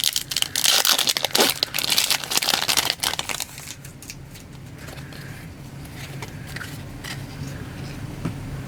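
Foil wrapper of a Panini Prizm baseball card pack crinkling and tearing as it is ripped open, stopping about three and a half seconds in. After that there are only faint rustles over a low steady hum.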